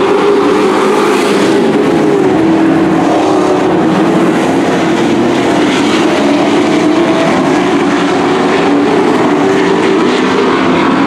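Dirt-track stock trucks racing, several engines running hard at once, their notes overlapping and shifting up and down in pitch as they power around the oval.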